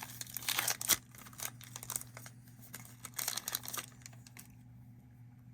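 Foil wrapper of a trading-card pack crinkling and crackling as it is handled and torn open, with a sharp crackle about a second in; the rustling dies away about four seconds in, leaving a faint steady low hum.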